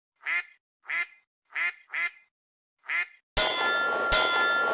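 A duck quacking five times, then a sudden loud metallic clang that rings on, with a second strike under a second later.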